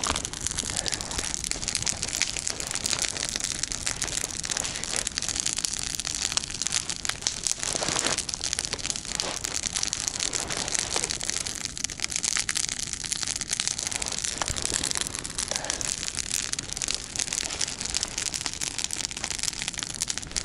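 Campfire of dry deadwood burning well, crackling and snapping continuously, with a steady hiss under the pops.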